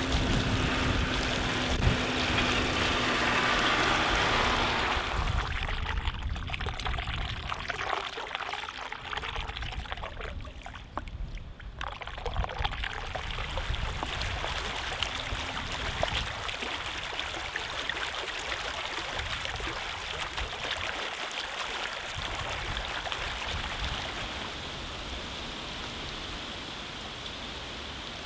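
Floodwater running and pouring, a steady rushing noise. A tractor engine drones over it for the first five seconds, then fades out.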